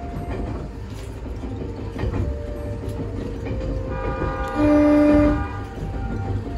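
Limited-express electric train of the Yukemuri service (a former Odakyu Romancecar) running on the track with a steady rumble. About two-thirds of the way through, the horn sounds once in a short blast of under a second.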